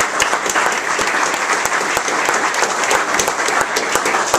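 Audience applauding, a dense steady clapping that tails off just after the end.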